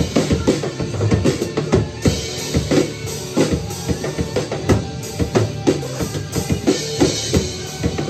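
Acoustic drum kit played in a busy rock groove: bass drum, snare and cymbals, several strokes a second. A rock band recording plays underneath, with the drums played along to it.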